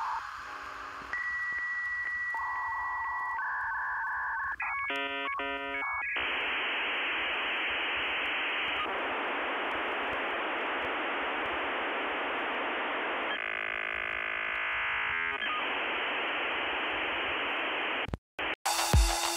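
Dial-up modem connection sound, heard as if over a phone line: dialing tones and steady beeps, then the handshake's warbling tones and a long hiss. It cuts off near the end and beat music starts.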